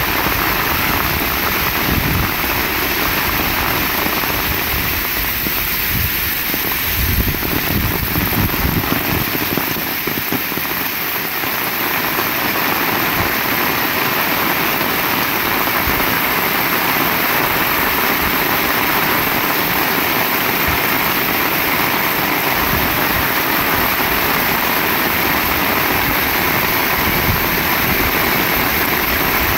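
Heavy rain falling steadily, a dense even hiss, with a fluctuating low rumble underneath that eases off for a while about ten seconds in.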